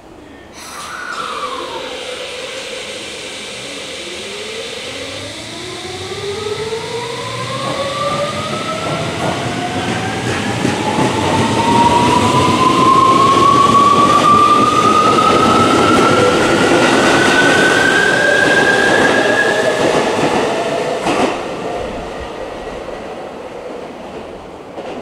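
Tokyo Metro 17000 series train pulling away, its full-SiC MOSFET VVVF inverter and traction motors giving a whine that rises steadily in pitch as it accelerates, several tones climbing together. A short falling tone comes about a second in, and the sound fades near the end as the train leaves.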